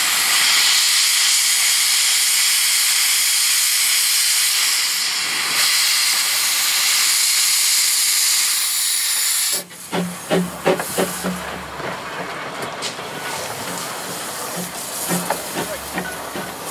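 Steam blowing out of the Hunslet 0-4-0 saddle tank locomotive "Jack Lane" with a loud, steady hiss that stops suddenly about ten seconds in. After that come quieter, irregular clicks and clanks over a low hum, as the locomotive stands in steam.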